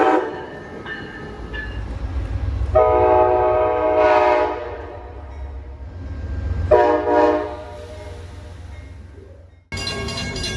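Locomotive air horn blowing over the low rumble of a passing train: a brief blast at the start, a long blast about three seconds in, and a shorter one about seven seconds in. Near the end the sound cuts abruptly to something different with steady tones and a regular beat.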